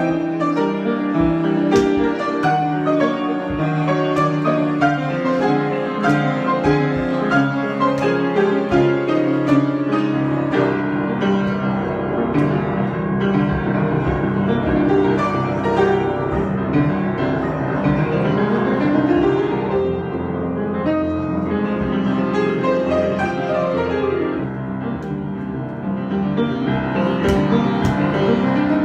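Piano improvisation: flowing runs and chords played continuously without a break.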